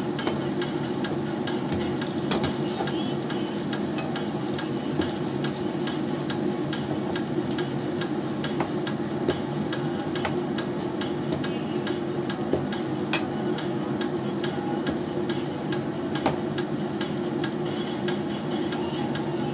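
Turon (glutinous-rice rolls in spring-roll wrappers) frying in shallow oil in a wok: steady sizzling with many small pops, while a metal slotted spoon stirs and turns the rolls against the pan.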